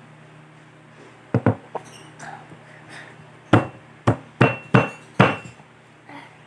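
A series of about eight sharp knocks: three lighter ones, then five louder ones a second or two later, a few leaving a short ringing tone.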